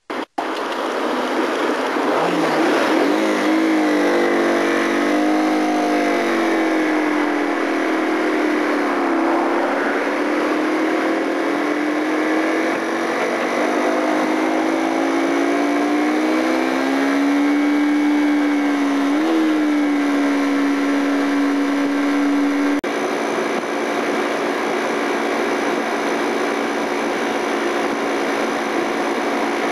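Yamaha TW125's single-cylinder four-stroke engine running under way, its note rising and falling as the revs change, then holding steady for a few seconds. About two-thirds through there is a click, after which the strong engine note gives way to a steadier drone.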